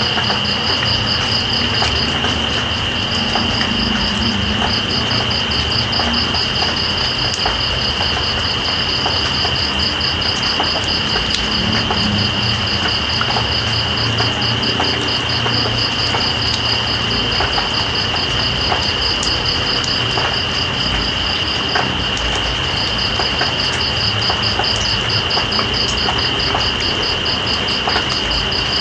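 Night insects such as crickets trilling: one steady high-pitched trill and a rapidly pulsing higher chirp that breaks off briefly twice. Under them is a steady hiss of rain with scattered drips.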